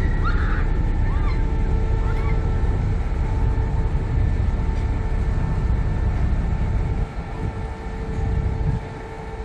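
Ferry engines running, heard from the open deck: a steady low rumble with a constant machinery hum, the rumble easing off about seven seconds in. A few faint short chirps come near the start.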